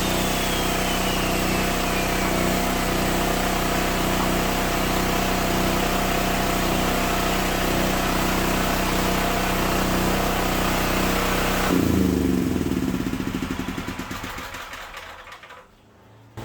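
The 13 horsepower engine of a 6,000-watt All-Power portable generator running at a steady speed, then cutting out about twelve seconds in and coasting down to a stop over a few seconds, its pitch falling as it slows.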